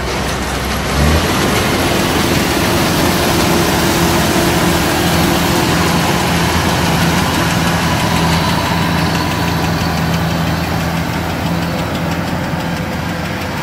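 Kubota DC-105X rice combine harvester's diesel engine running under load as the machine travels and cuts. Its note steps up about a second in, then holds steady.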